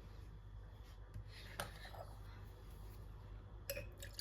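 Quiet room tone with a few faint, light clicks and taps.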